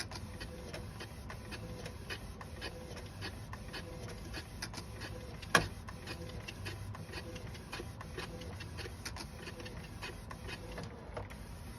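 FL200h half-size food printer printing, its mechanism running with a steady faint tone under rapid, irregular clicking and rattling, and one sharp, much louder click about five and a half seconds in. This is the abnormal noise that goes with the jagged print lines the printer shows.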